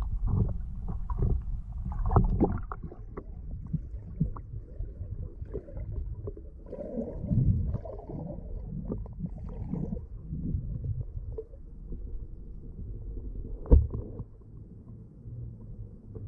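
Muffled underwater sound heard through an action camera's waterproof housing: low water movement and sloshing with scattered knocks, and one sharper knock near the end.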